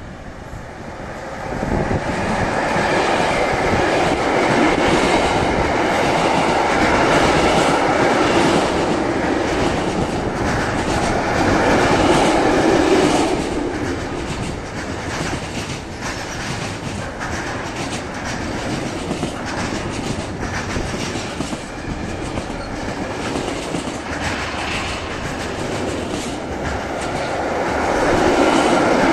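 Freight train hauled by an electric locomotive passing close by, a long string of container and swap-body wagons rolling past. The wheels clatter over the rail joints in a steady run of clicks. The noise swells about a second and a half in, eases a little midway and swells again near the end.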